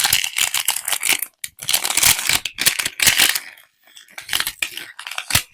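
Crinkly plastic wrapping being handled and torn open in irregular bursts, as small packaged Mini Brands toys are unwrapped.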